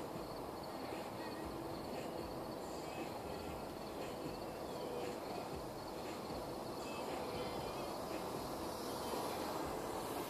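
Steady outdoor background noise, with faint scattered bird calls.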